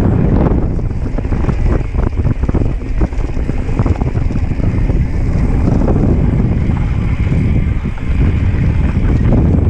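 Wind buffeting the microphone over the rumble of mountain bike tyres rolling fast down a dirt trail, with frequent small knocks and rattles from the bike over bumps.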